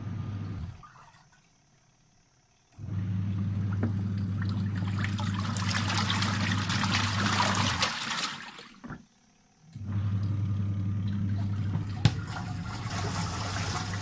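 Mika 6 kg semi-automatic top-load washing machine agitating a rinse load. The motor hums and the water sloshes in the tub. It stops about a second in, restarts near the 3-second mark, pauses briefly past the middle and starts again, the stop-start of the pulsator changing direction.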